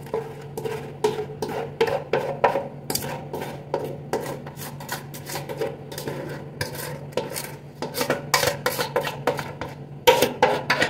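A spoon scraping cake batter out of a stainless steel mixing bowl in quick, irregular strokes against the metal, growing louder near the end.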